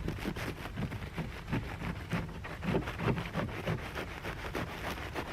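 Pruning knife cutting into a dry, papery wasp nest: an irregular crackling and crunching of the paper-like shell.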